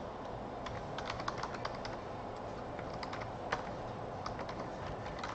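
Typing on a computer keyboard: scattered keystroke clicks, thickest in the first two seconds, with one slightly louder click about three and a half seconds in.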